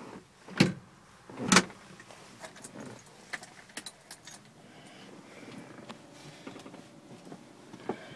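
Keys jangling, with two sharp knocks about half a second and a second and a half in, then a faint steady background hum.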